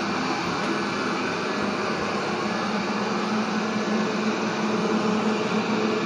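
360 S7 robot vacuum cleaner running while it cleans, a steady whir of its suction fan and brushes with a low hum underneath.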